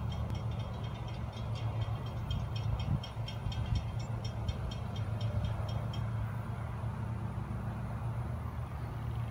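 Grade-crossing warning bell ringing in rapid, even strokes, which stop about six seconds in. Under it runs the steady low rumble of approaching diesel locomotives, GE ES44C4 units leading a freight train.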